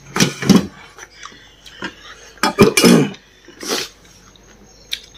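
Dishes and cutlery clinking and knocking during a meal, in a few separate bursts with short pauses between.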